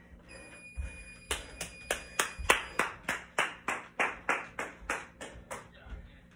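An electronic gym interval timer beeps a steady tone for about two seconds as its countdown reaches zero. About a second in, a steady run of hand claps begins, about three a second, and fades near the end.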